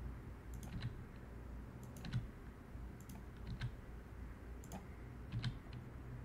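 Faint clicks of a computer mouse and keyboard, single and in pairs, every half second to a second or so, over a low steady hum.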